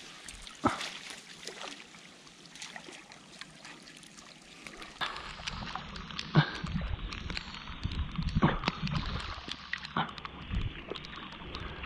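Shallow water splashing and sloshing as a seine net is dragged through a muddy mangrove channel, with irregular small splashes. About five seconds in the splashing gets louder over a low rumble, with one sharper splash soon after.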